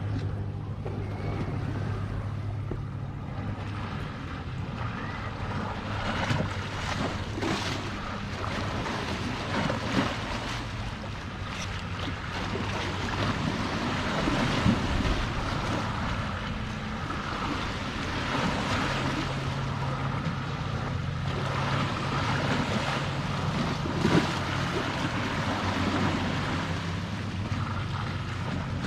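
Sea waves washing in steadily, with some wind on the microphone. Under them runs a low steady motor hum that fades in and out.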